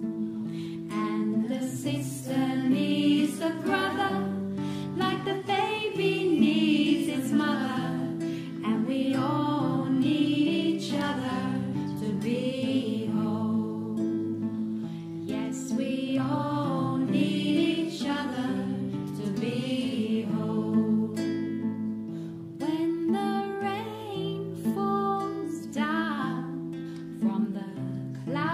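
Devotional song: voices singing a slow melody over strummed acoustic guitar.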